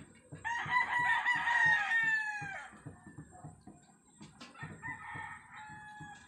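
Rooster crowing: one long call that falls in pitch at its end, then a second, fainter call about two seconds later.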